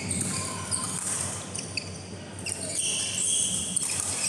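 Badminton rally: sharp racket hits on the shuttlecock, with sports shoes squeaking on the court mat as players move.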